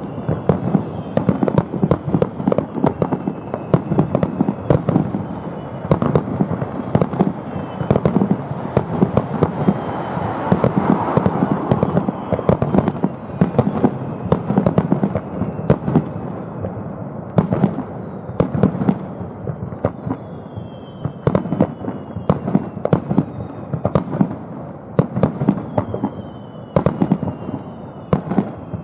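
Fireworks finale heard from a distance: a rapid, unbroken barrage of shell bursts and crackling reports. In the second half, falling whistles from whistling shells sound over the bursts.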